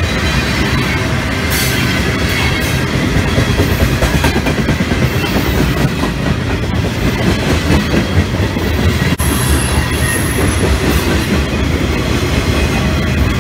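Freight cars (tank cars, a centerbeam lumber car and boxcars) rolling past at close range: a steady, loud rumble and clatter of steel wheels on the rails. A brief high, thin squeal comes in about nine seconds in and lasts around a second.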